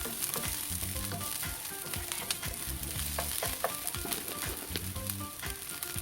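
Onions and garlic sizzling in hot oil in a pan, with a utensil stirring and scraping against the pan in frequent short clicks.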